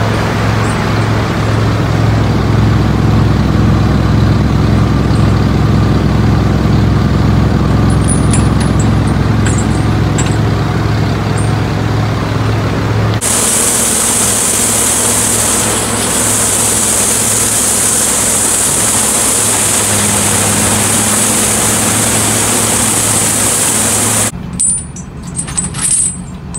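Chain flail delimber-debarker running, first with a steady engine hum. About halfway in, the spinning flail drum's steel chains start beating on logs fed through it, a loud dense hiss and clatter. Near the end, the loose hanging flail chains clink as they are handled.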